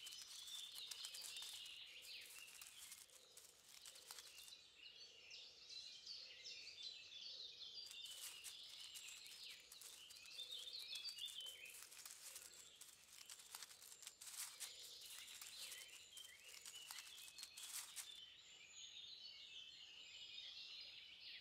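Faint woodland ambience of small birds chirping and singing throughout, with scattered light clicks.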